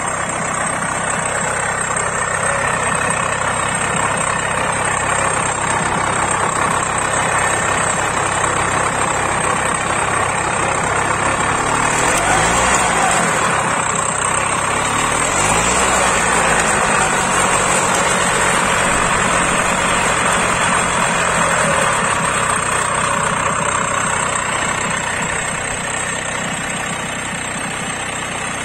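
Engine of a 35-year-old Benassi walk-behind tiller, a Minarelli, running steadily under the operator's hands. Its pitch dips and comes back up a couple of times around the middle, and it is a little quieter near the end.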